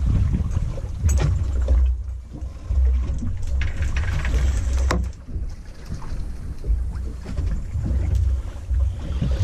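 Low, gusting rumble of wind on the microphone and a fishing boat on the open sea, with a few sharp knocks about a second in and again around five seconds in.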